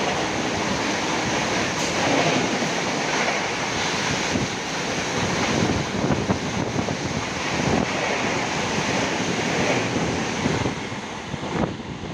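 An express train of LHB passenger coaches passing at high speed: a steady rush of wheel and air noise with many quick knocks from the wheels. It dies down near the end as the last coach goes by.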